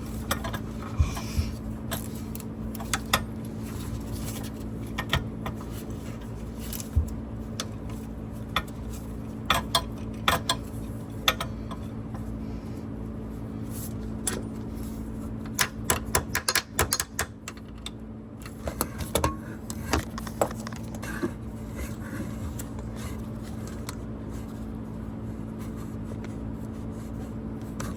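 Metal hardware and hand tools clinking, tapping and scraping in sharp, irregular knocks as a seat shock is worked into its bracket, with a steady low hum underneath.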